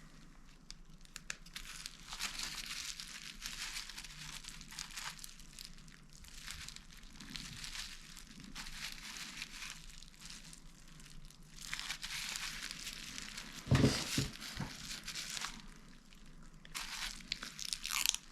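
Crinkling and rustling of plastic being handled at close range, with a sharp knock about fourteen seconds in.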